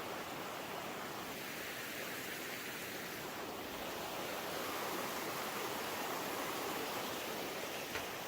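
Steady outdoor rushing noise that swells slightly through the middle, with one short click near the end.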